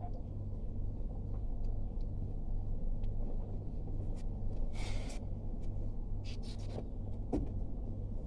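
Steady low hum, with a short hiss about five seconds in and a few faint clicks.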